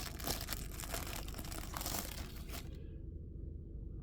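Paper wrap crinkling and tearing as a pocket knife is unwrapped from its box, the rustling stopping a little over halfway through.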